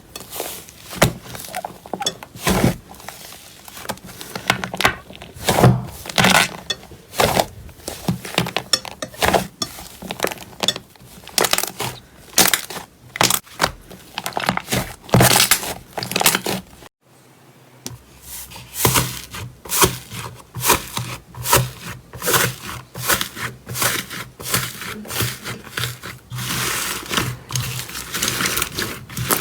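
Slime being squeezed and poked by hand, giving a dense run of crackling, popping clicks. About halfway through it breaks off for a moment and a second batch of slime carries on with quicker, finer crackles.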